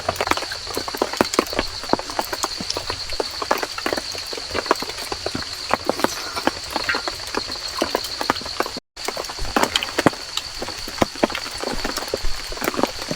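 Heavy raindrops dripping from the trees onto fallen leaves and the shelter, an irregular patter of sharp taps, some louder than others. A steady high-pitched whine runs underneath, and the sound cuts out for an instant about two-thirds through.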